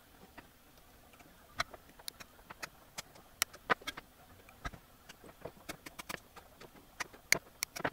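Diagonal cutters snipping component leads on a circuit board: a string of sharp, irregular clicks, a snip every fraction of a second, a few much louder than the rest.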